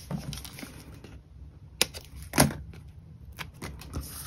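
A few sharp clicks and taps from craft materials being handled on a worktable, the loudest about two and a half seconds in.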